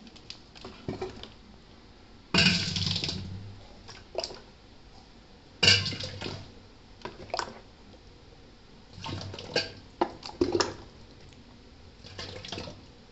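A glass dipped into and poured out of a steel pot of tamarind water, splashing twice, then a run of short splashes and the glass knocking against the steel pot.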